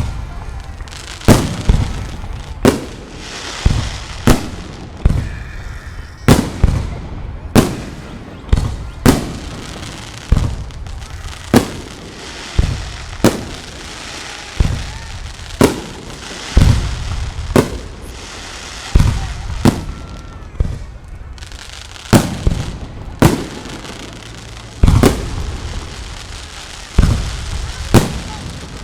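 Aerial fireworks shells bursting one after another, roughly one sharp bang every second or so, each with a rumbling echo, and crackling between the bangs.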